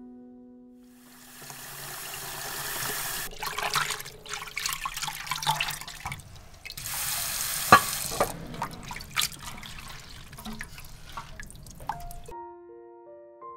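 Water splashing and dripping as hands squeeze and swish soaked butterbur stalks and bracken in a bowl of water, in several spells with short breaks. A fading guitar note opens the sound, and piano-like music comes in near the end.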